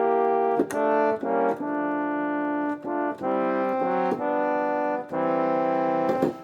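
Yamaha Montage M synthesizer playing its "Euphonium 2" brass preset: a series of held chords, each lasting about a second, with short breaks between them and the longest held nearly a second and a half.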